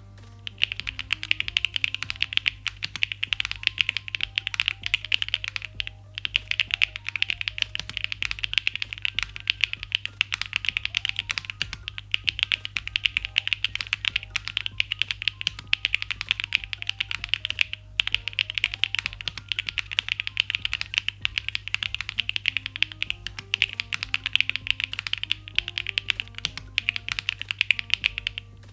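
Mechanical keyboard being typed on quickly and continuously: a MODE Sonnet fitted with PBTfans Count Dracula PBT keycaps, giving a dense stream of key clacks with brief pauses about six seconds in and again near eighteen seconds. Soft background music plays underneath.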